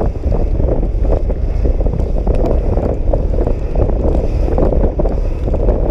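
Wind buffeting the microphone of a scooter rider on the move, a steady loud rumble that buries the scooter's engine and the road noise, with rain spoiling the audio.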